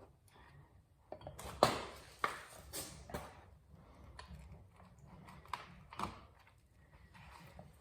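Irregular knocks and clinks of hand tools and metal parts being handled during motorcycle rear wheel assembly. The sharpest come in a cluster about one and a half to three seconds in, with fainter ones spaced out after.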